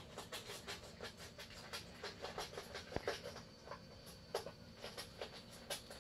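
A puppy's claws clicking on a wooden floor as it walks about: many light, irregular ticks, with one sharper click about halfway.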